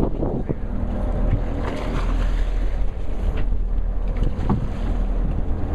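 Fishing boat at sea: a steady low rumble with wind buffeting the microphone and water washing along the hull, and a few faint knocks.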